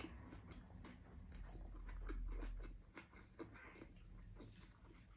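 A person chewing a mouthful of soft chicken curry tortilla wrap, with a quick, irregular run of small mouth clicks. A low rumble swells about two seconds in.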